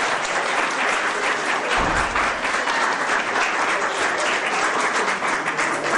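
Audience of pupils and teachers applauding steadily after a song, with a brief dull bump about two seconds in.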